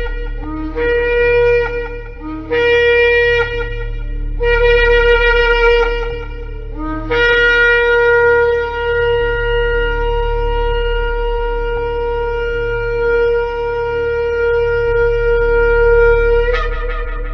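Shofar (ram's horn) blown in a series of short blasts, each starting on a low note and jumping up to a higher one, then one long held blast that ends with a sharp upward flick near the end. A steady low hum runs underneath.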